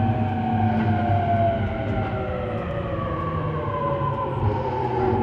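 Traction motor and VVVF inverter whine of a JR E231-800 series motor car, heard from directly above the motor, with several tones falling slowly in pitch as the train slows, over steady wheel-and-rail running noise.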